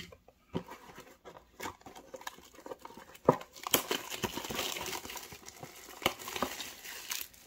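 Clear plastic shrink wrap being picked at and peeled off a cardboard trading-card blaster box. Scattered clicks and crackles at first, then a dense stretch of crinkling from about halfway through as the wrap comes away.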